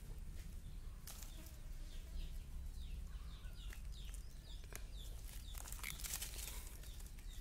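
A bird calling in a quick series of short, falling chirps for a few seconds, over crackling rustles of dry leaves as the kittens scuffle on them.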